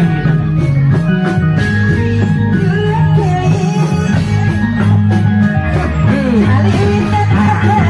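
Loud music accompanying a Reog Indramayu masked dance: a steady percussive beat over deep held bass notes, with a wavering melody line above.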